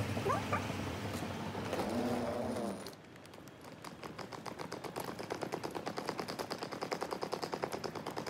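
Steady mechanical running of a moving walkway, then, after a sudden cut about three seconds in, a rapid, even clicking at several clicks a second.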